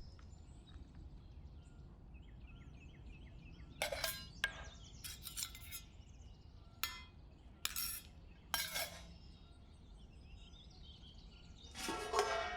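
A few sharp clinks of hard objects, spread over several seconds, over faint small-bird chirping and low background noise.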